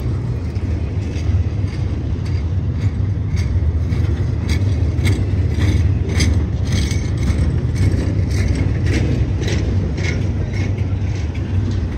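Cars of a welded-rail train rolling past: a steady low rumble with frequent sharp clicks and squeaks, several a second.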